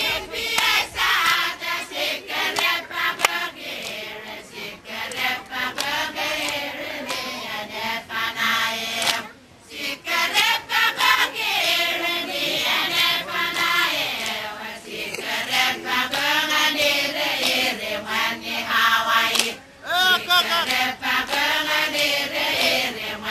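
Group of Satawalese women chanting together in a seated dance, with sharp hand claps through the chant.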